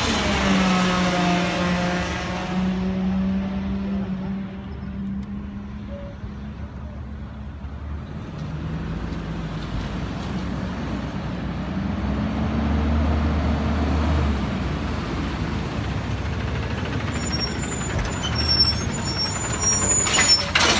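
Diesel garbage truck engines: a McNeilus front-loader drives past, its engine note sagging in pitch and fading over the first few seconds. Then another garbage truck's engine builds as it approaches, with high brake squeals and a hiss of air brakes as it stops near the end.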